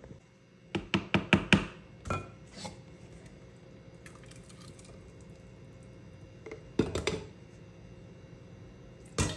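Kitchen cookware and utensils knocking and clinking as they are handled: a quick run of about six knocks about a second in, two more soon after, a short cluster past the middle and one more near the end, over a faint steady hum.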